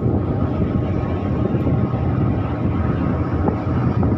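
Steady low rumble of a passenger ship underway, its engines and hull noise running evenly, with wind buffeting the microphone.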